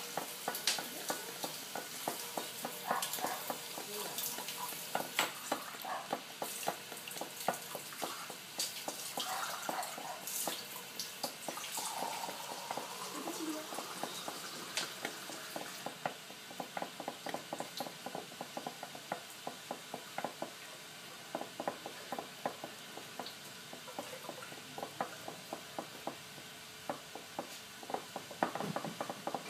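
A stirring rod tapping and scraping against the inside of a glass beaker in a steady run of light, quick ticks as a cosmetic emulsion is stirred by hand.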